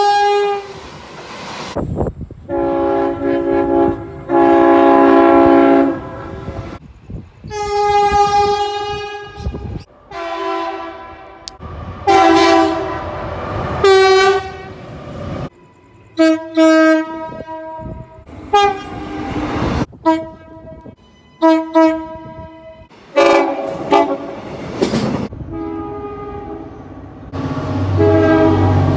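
Locomotive air horns: a rapid series of horn blasts from several different horns, each sounding a chord of several steady notes. Some blasts are long and some are short toots. Train noise and a low rumble fill the gaps between them.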